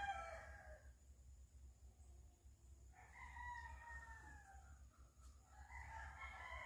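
Roosters crowing, faint: one long crow trails off about a second in, another comes around three seconds in, and a third starts near the end.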